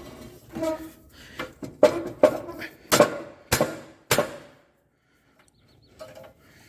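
A run of sharp metal clanks and knocks, about five loud ones between two and four seconds in, as a John Deere 43C front blade's mount is forced into place on the garden tractor to lock it on.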